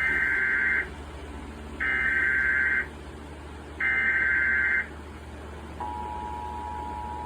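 Emergency Alert System header: three one-second bursts of warbling digital data tones, a second apart, encoding a tornado warning, then about six seconds in the steady two-tone EAS attention signal starts.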